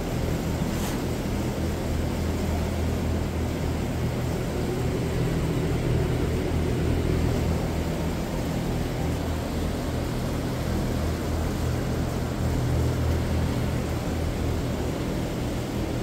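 Large cattle-shed fans running steadily: a constant low hum with a rush of moving air.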